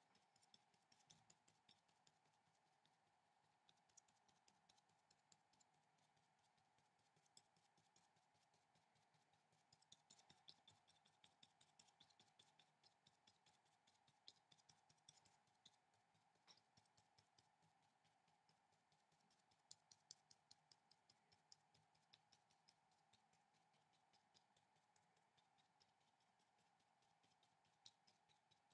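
Very faint, irregular tapping of a paintbrush dabbing watercolour onto paper, in clusters of small ticks, over a faint steady hum.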